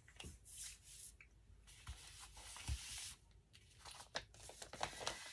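Faint rustling and rubbing of a paper manila envelope as hands smooth and shift it across fabric, in a few short patches with small taps between.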